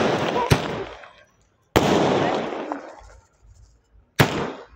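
A 60-shot sky shot firework cake firing, its shells bursting overhead in a sharp bang followed by crackling that fades over about a second. One burst is going as the sound begins, with a crack about half a second in, another follows at under two seconds, and a short sharp bang comes near the end.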